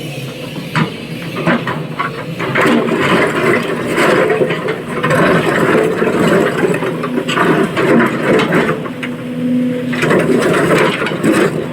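SANY excavator's diesel engine working under load, with many short knocks and scraping sounds over it.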